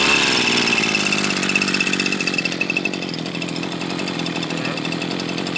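Tanaka TVC 200 two-stroke brush cutter engine running steadily just after being pull-started, with a high whine over the engine note. It is really loud, easing off a little over the first few seconds.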